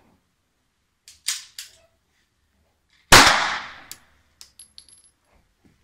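A single pistol shot about three seconds in, the loudest sound, with a short decaying echo. About a second earlier come two fainter sharp cracks close together, and a few light clicks follow the shot.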